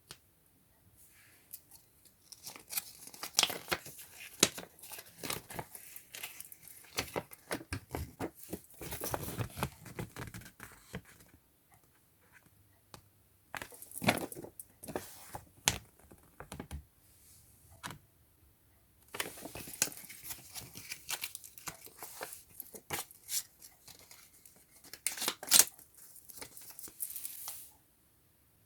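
Toy box packaging being opened by hand: tearing, crinkling and rustling in three busy stretches, with short quiet pauses between them.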